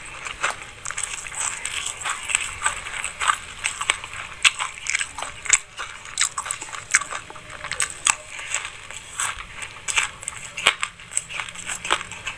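Close-miked chewing of a mouthful of black and white sesame seeds: a dense, irregular run of quick, crisp crackles and crunches.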